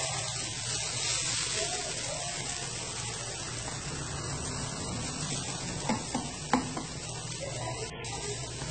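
Instant noodles sizzling in hot oil in a frying pan, a steady hiss as they fry, with chopsticks spreading them out and two short knocks against the pan about six seconds in.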